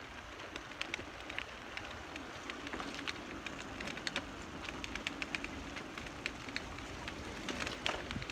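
Steady rain, with a constant hiss and many irregular sharp taps of drops landing close by.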